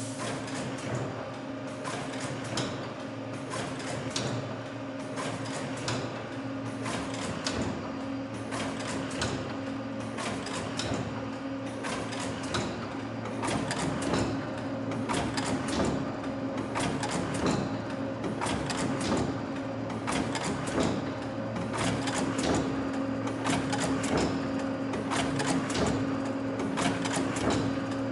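TEL 183 automatic leather weaving loom running: a busy clatter of mechanical clicks and knocks, several a second, as the reed beats up the weft, over a steady motor hum.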